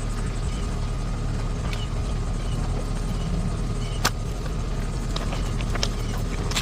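Baby clothes being scrubbed and soaped up by hand: a steady wet rubbing over a constant low hum, with a sharp click about four seconds in and a smaller one near the end.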